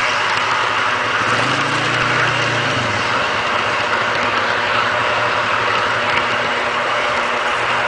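Garden-scale model train running along its track, heard from a camera riding on one of its cars: a steady rolling rush of wheels on rails over a low hum. The low hum briefly rises and falls in pitch about one and a half to three seconds in.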